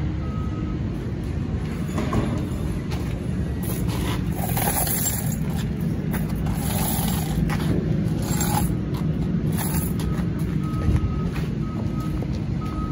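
Box truck's engine running with road and wind noise, a steady low rumble with occasional whooshes. Faint short beeps come once near the start and again several times near the end.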